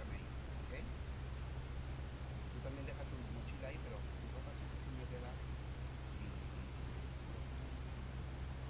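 Steady high-pitched insect chorus with a fast, even pulsing, running without a break.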